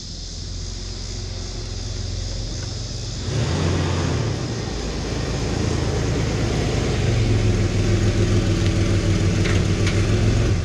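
1986 GMC S15 pickup's engine running with a low, steady rumble; it gets louder about three seconds in and keeps building slowly, as when revs rise while the truck is driven.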